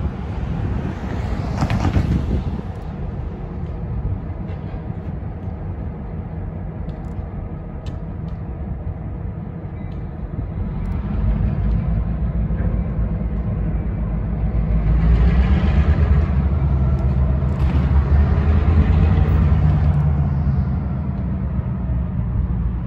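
Union Pacific diesel locomotives running light, without cars: a steady engine rumble that grows louder as they come closer, is loudest past the middle, then eases off near the end.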